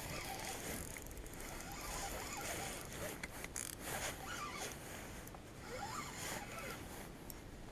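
Spinning reel being cranked to bring in a hooked pike, an uneven rasping whirr broken by a few short clicks about three seconds in.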